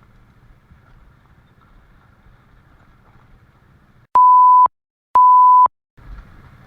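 Two identical steady beep tones, each about half a second long and a second apart, in the style of an edited-in censor bleep, with all other sound cut out around them. Before them there is only a faint low rumble.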